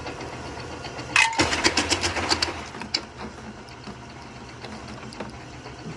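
Small electric jaw crusher running steadily, with a burst of sharp cracking and clattering about a second in as pieces of gold ore are crushed between its jaws.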